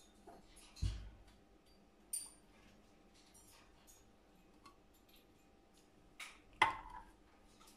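Quiet kitchen handling of a condensed milk can over a stainless steel pot: scattered light clicks and short knocks, one about a second in, another just after two seconds, and a sharper clack near the end.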